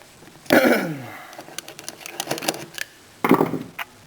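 Abus Rock padlock being taken apart with tools: a run of small metal clicks and scrapes, with a louder scrape about three seconds in.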